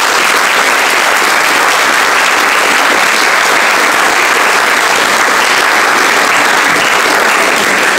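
Audience applause in a large hall, steady and sustained.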